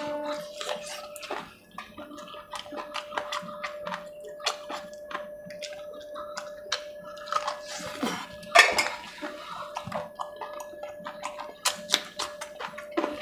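Close-up eating sounds: chewing and lip-smacking as chicken curry is eaten by hand, with many small clicks of fingers and bones on a steel plate. A louder, wet burst comes about eight and a half seconds in, over a faint steady hum.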